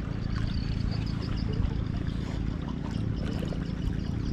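Fast river current pouring and trickling past a floating raft, with a steady low hum underneath.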